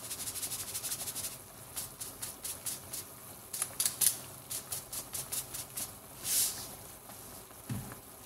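Salt shaken from a shaker into a simmering pan of broth: a quick run of rattling ticks for about the first second. Then irregular pops and crackles of the simmering liquid, with a brief hiss about six seconds in.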